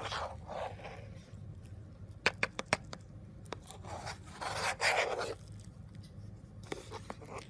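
Scraping and rustling with short runs of sharp clicks, as chilled homemade slime is got out and handled; the longest, loudest scrape comes about two-thirds of the way through.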